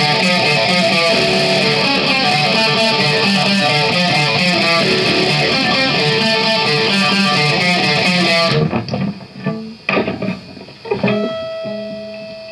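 Electric guitar and drum kit playing loudly together, stopping abruptly about eight and a half seconds in. A few scattered knocks follow, then a single guitar note rings on near the end.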